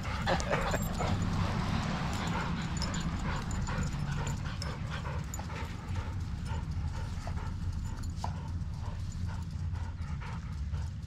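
Dogs at play on grass, one panting with quick rhythmic breaths, over a low steady rumble.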